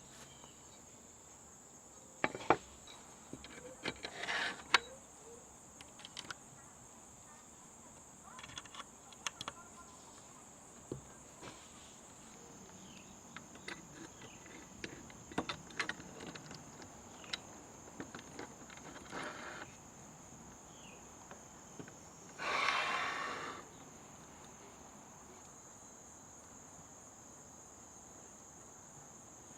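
Steady high-pitched chirring of crickets, with scattered light clicks and knocks and a louder rustling noise lasting about a second, around twenty-three seconds in.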